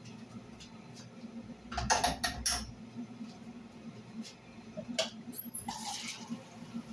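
A metal fork and a nonstick frying pan of rice clinking and knocking, with a cluster of knocks about two seconds in as the pan is set down on the gas stove's grate. A lighter click and a brief scrape follow near the end.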